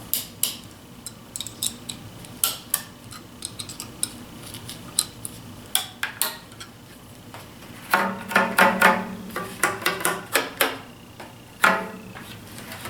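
Metal clicks and clinks of a wrench working the nuts and bolts of a miter clamping corner, with a quicker run of ringing clicks about eight seconds in.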